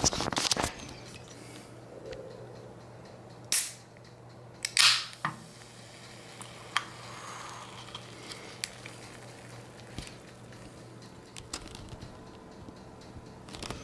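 Aluminium drink can opened by its pull tab: a short snap, then about a second later a louder crack with a brief fizzing hiss as the can vents. A few small clicks follow over a faint steady hum.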